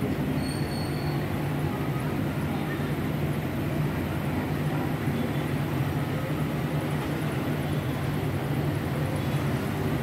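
Steady rumble of city street traffic, mostly motorbikes and cars, in an even low din without breaks.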